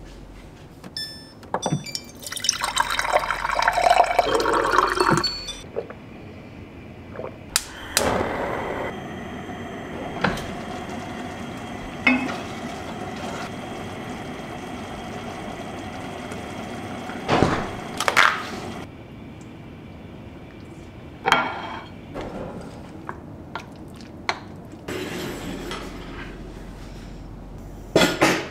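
Water pouring into a glass from a dispenser for about three seconds. Then a few clicks, a steady hum by the stove lasting about ten seconds, and several short clinks of a pot and dishes.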